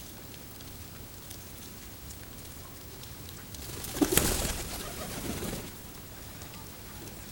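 Feral pigeons: a sudden burst of wing flapping about four seconds in, the loudest sound, followed by low pigeon cooing lasting about a second and a half.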